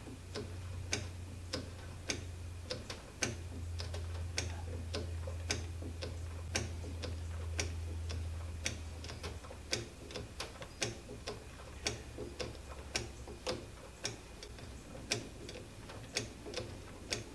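Hand-operated oil pump clicking with each stroke, about once a second with lighter clicks between, as oil is pumped into a lathe saddle's oil reservoir. A low steady hum runs underneath and fades about nine seconds in.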